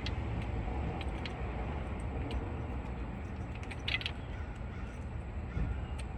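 A few light metallic clicks and clinks of a part and hand tools being handled, a small cluster about four seconds in, over a steady low rumble of background noise.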